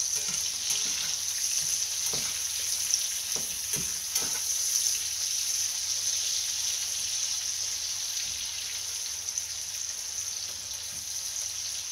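Sliced portobello mushrooms sizzling in butter in a cast-iron skillet: a steady frying hiss, with a few short knocks of the spatula stirring them in the first half.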